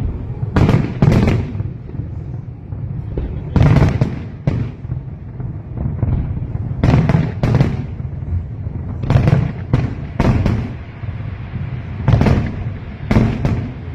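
Fireworks display bursting: about a dozen sharp bangs, mostly in pairs, every second or two, each trailing off in a rumble, with a steady low rumble between them.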